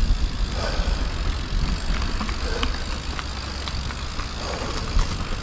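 Mountain bike being ridden along an overgrown trail: a steady low rumble of wind on the microphone, with scattered ticks and rattles from the bike over the rough ground.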